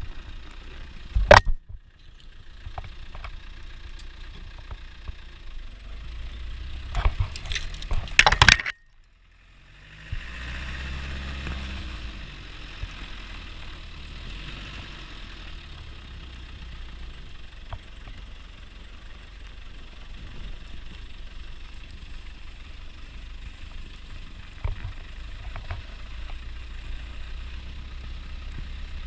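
Land Rover Defender 90's engine running, with several loud knocks and clatters in the first nine seconds. The sound cuts out abruptly for about a second near the ten-second mark, then the engine hum returns steadily.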